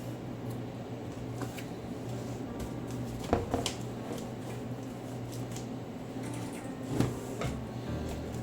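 Packaging being handled while a keyboard is unboxed: a few sharp knocks, about three seconds in, again shortly after and again near seven seconds, with lighter clicks between, over a steady low hum.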